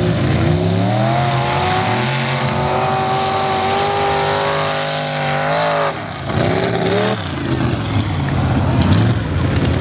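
Race pickup truck's engine at full throttle, its pitch climbing and holding high, then falling off about six seconds in. After a brief break the engine note comes back and rises again.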